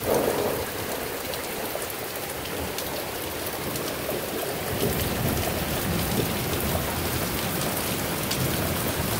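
Heavy rain falling steadily: a dense, even hiss with many sharp ticks of drops landing close by.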